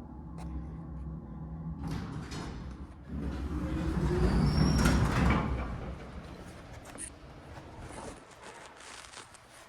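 Elevator doors sliding, over a steady mechanical hum. The sound grows loudest from about three to five seconds in, with a short rising tone in the middle, then fades.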